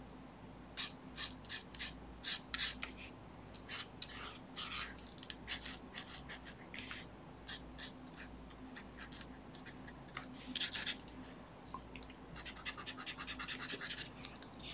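Black brush marker scratching over a paper sketch cover in runs of quick, short hatching strokes, densest about ten seconds in and again near the end.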